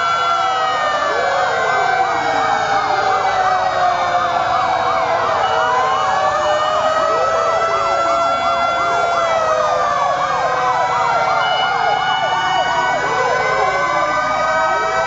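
Several fire-engine sirens sounding at once, overlapping slow rising-and-falling wails with a fast warbling yelp among them.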